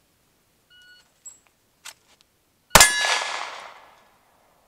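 Shot timer beeps once, followed by a couple of light clicks from the draw, then about two seconds after the beep a single shot from a 9mm Glock 19X pistol. A steel target rings out after the shot and fades over about a second.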